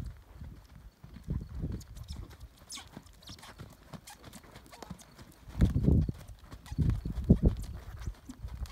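Horse's hoofbeats on a soft dirt arena, a run of dull low thuds, with a few louder ones about two-thirds of the way in.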